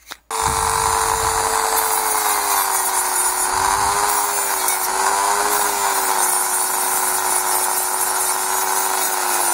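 Small high-speed power tool, a rotary tool, running with a steady whine that starts a moment in, its pitch wavering and dipping slightly as it cuts down the plastic louvers of a car air vent.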